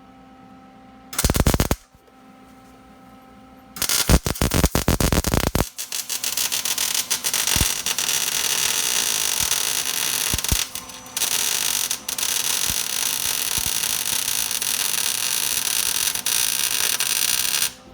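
Welding arc crackling and sizzling. A short burst comes about a second in and a crackly spell around four seconds in, then a long, steady bead with two brief breaks, stopping just before the end.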